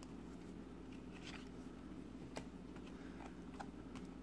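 Faint handling of glossy trading cards as they are flipped through in the hands, a few soft clicks and slides, over a steady low hum.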